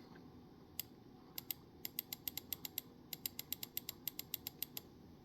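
Computer mouse scroll wheel clicking as a page is scrolled: a few single faint ticks, then two quick runs of even clicks at about six a second.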